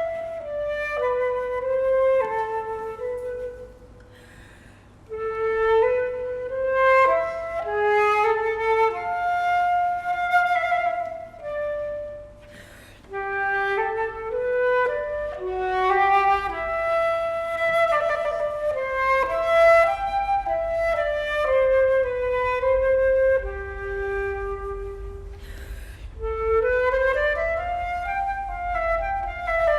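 Flute music: a single melodic line of held and stepping notes, pausing briefly twice, over a steady low hum.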